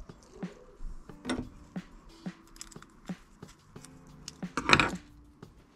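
Small clicks and taps of a screwdriver working the terminal screws of a plastic 13 A mains plug as the wires are fixed in, with a louder clatter of handling about three quarters of the way through.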